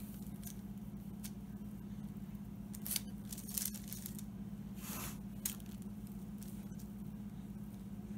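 A metal spoon spreading lemon buttercream frosting over a cake layer: a few short scraping sounds, around three and five seconds in, over a steady low hum.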